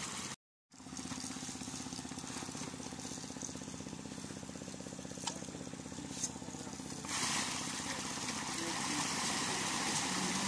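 A small engine running steadily with an even pulse; the sound cuts out briefly just after the start. About seven seconds in, a rushing hiss of splashing water joins it.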